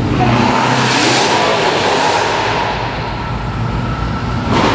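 A car accelerating past close by, its engine and exhaust swelling to a loud rush about a second in and then easing off into a steady hum. A short sharp crack sounds near the end.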